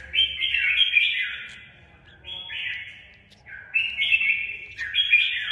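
A red-whiskered bulbul held in the hand gives harsh, rasping squawks, four in a row, as a swab is worked into its beak. The first call is the longest, at over a second.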